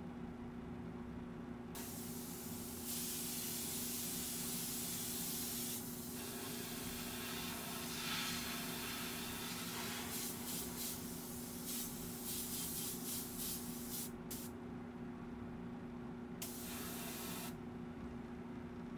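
Airbrush spraying chrome paint. A long hiss of about eight seconds is followed by a run of short quick puffs, then one more brief burst near the end, over a steady low hum.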